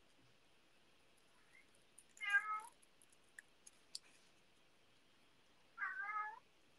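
Domestic cat meowing twice, two short calls about three and a half seconds apart. Between them come a few faint clicks of small scissors snipping paper.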